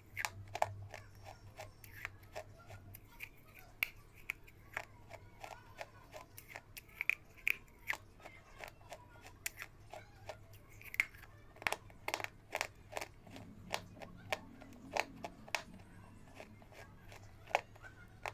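Crisp crunching as a person bites and chews hard brown discs: sharp irregular cracks, several a second, all through.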